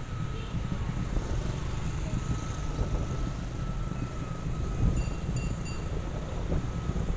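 Steady rumble of road traffic, with a few short high beeps about five seconds in.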